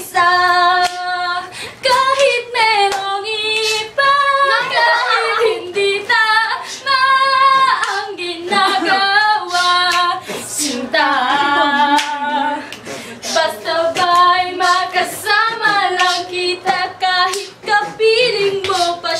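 Female singing a cappella, a Tagalog song with long held notes that rise and fall, no instruments behind it.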